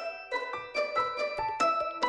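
Background music: a melody of plucked or struck notes, about three to four a second.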